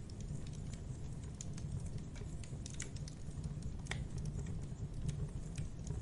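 Wood campfire burning, with frequent sharp irregular crackles and pops over a steady low rush, one pop louder than the rest about four seconds in.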